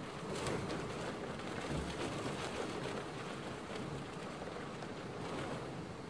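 Nature ambience of steady water noise, an even wash with faint scattered ticks through it.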